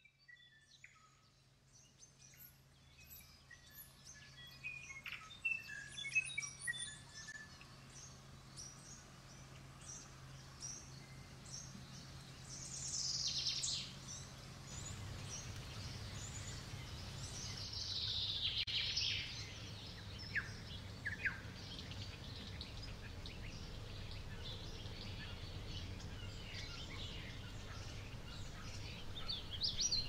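Nature soundscape fading in: many birds chirping and calling, with two longer, louder calls near the middle, over a low steady hum and a background hiss that grows from about halfway.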